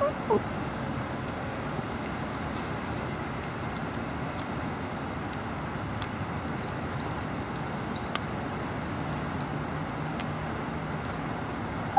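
Steady distant road-traffic noise, with a faint click about eight seconds in.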